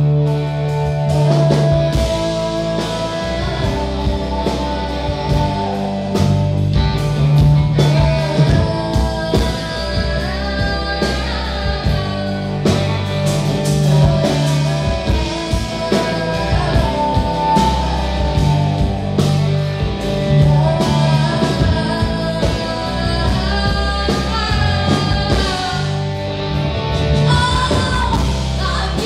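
A rock band playing live: a woman singing over electric guitars and drums.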